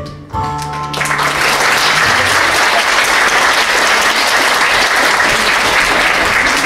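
The accompaniment's closing chord is held briefly. Then, about a second in, audience applause breaks out and goes on steadily.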